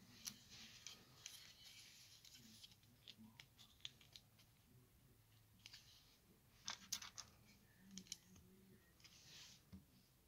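LEGO bricks being handled and snapped together: faint scattered plastic clicks with brief rustling and scraping of pieces, the sharpest clicks about seven seconds in.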